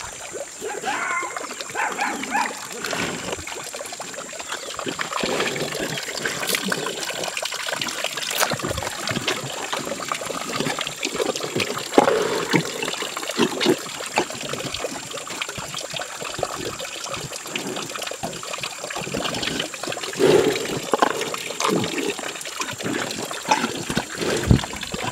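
Gir cow drinking whey from a hand-held plastic bucket, with irregular slurping and splashing gulps.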